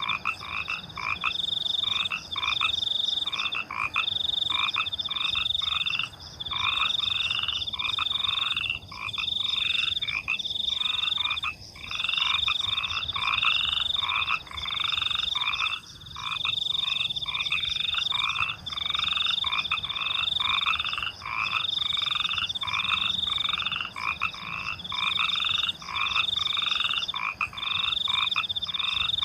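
Night chorus of frogs croaking and crickets chirping: a steady rhythmic pattern of repeated calls, with a high trill coming in bursts about a second long, one after another.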